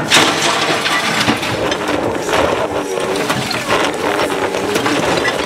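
MultiOne articulated mini loader's engine running under load, its note rising and falling, as the steel bucket drives into a pile of broken clay roof tiles, which crunch and clatter continuously.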